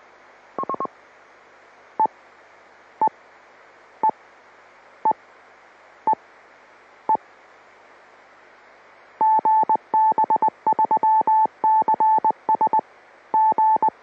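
GB3CS amateur radio repeater sending keyed audio tones over a hissing FM channel. A quick cluster of pips comes first, then single short beeps about once a second, then from about nine seconds a fast Morse code tone, the repeater's callsign ident. The hiss and tones cut off suddenly at the end as the repeater's carrier drops.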